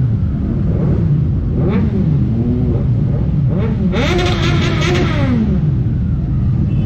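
Several big superbike engines revving over a steady low rumble, their pitch rising and falling with the throttle; the loudest rev comes about four seconds in.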